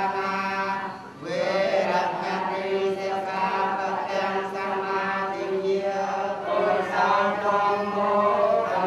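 Group of men chanting a Buddhist blessing in unison on long held notes, with a brief break about a second in before the chant picks up again.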